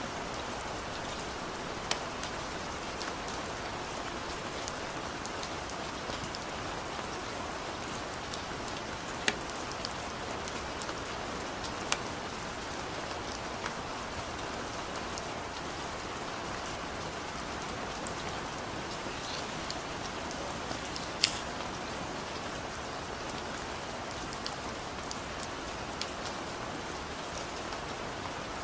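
Steady rain falling, an even hiss with a few sharper, louder drip clicks now and then.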